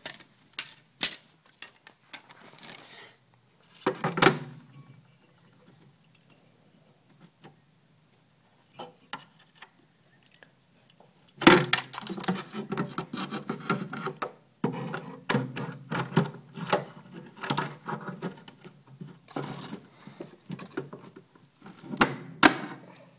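Heavy-duty plumbing pliers clicking, knocking and scraping against the metal mounting pins and base plate of a small refrigerator compressor, worked roughly to pull the pins out. Scattered sharp clicks and knocks at first, then a long stretch of dense rattling and scraping from about halfway.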